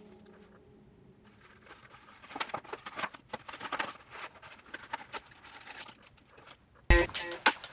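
Light handling sounds of unboxing: scattered small clicks and taps with faint rustling of packaging. Near the end, electronic music with a heavy beat cuts in suddenly.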